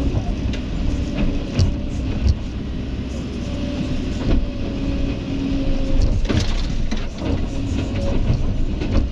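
Kobelco SK excavator's diesel engine running under load with a steady whine, and several clanks as it works loading a dump truck.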